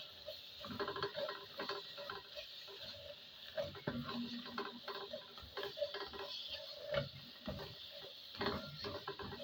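Spoon stirring tomato paste into spiced onions in a cooking pot: a run of irregular light taps and scrapes against the pot over a faint steady frying hiss.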